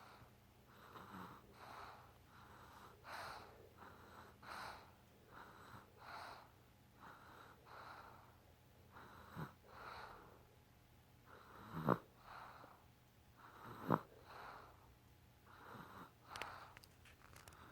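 A baby snoring in sleep: soft, quick, wheezy breaths a little faster than one a second, broken by a few short, sharper catches, the loudest about twelve and fourteen seconds in.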